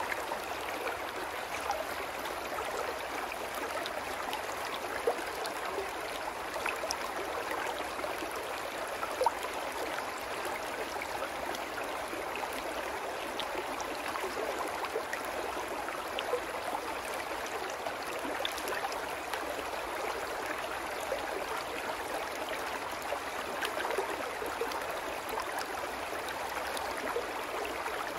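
Small rocky brook babbling: a steady rush of running water over low stones, with a few brief splashes standing out.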